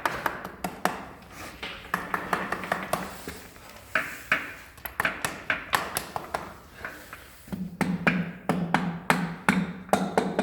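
A piston being tapped down into its cylinder bore in an Iveco EuroTrakker engine: a quick, steady series of light taps, several a second, some with a metallic ring, louder in the last few seconds.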